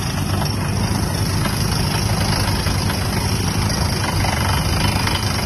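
Truck-mounted water well drilling rig running: a loud, steady heavy engine drone.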